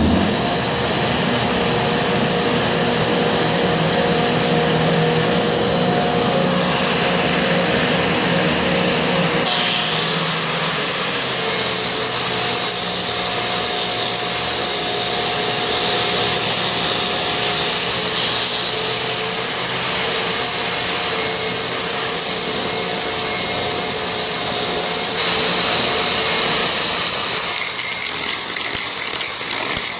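DeWalt concrete grinder, an angle grinder with a diamond wheel spinning at about 11,000 RPM, grinding down high spots in a concrete floor, with a shop vac drawing dust through its shroud. Steady loud running noise, with a high whine that rises and levels off about ten seconds in.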